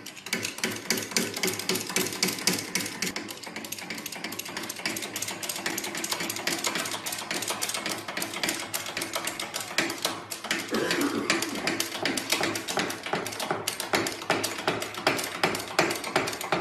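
Rapid, continuous mechanical clicking and rattling, many clicks a second.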